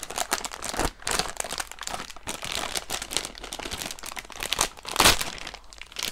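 Plastic packaging of a model rocket kit crinkling and crackling as it is handled and opened, with one louder crackle about five seconds in.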